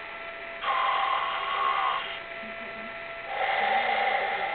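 Toy snoring frog giving its snoring sound: one snore of about a second and a half, then a second one starting near the end.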